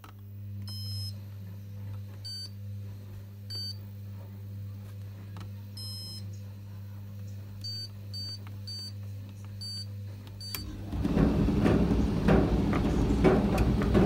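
Candy Smart Touch tumble dryer in service test mode: its control panel gives a series of short high beeps as the buttons are pressed, over a steady low hum. About eleven seconds in, a much louder rumble with clattering starts as the drum begins turning.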